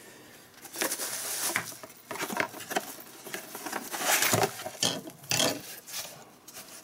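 Cardboard packaging and bubble wrap rustling and crinkling in irregular bursts as bubble-wrapped lamps are pulled out of their box.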